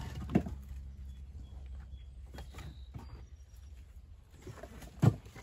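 Split oak firewood knocking as pieces are set onto a stack: a sharp wooden knock just under half a second in and a louder one near the end, with lighter clunks between.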